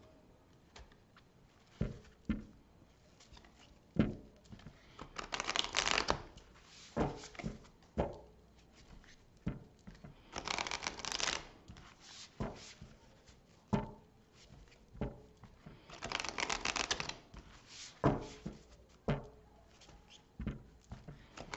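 A deck of oversized oracle cards being shuffled by hand. There are three longer rustling shuffles, about five, ten and sixteen seconds in, with sharp taps and knocks of the cards between them.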